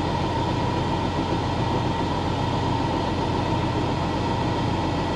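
2000 Freightliner FLD 112 semi's diesel engine idling steadily, heard from inside the cab, with a constant even hum over the low rumble.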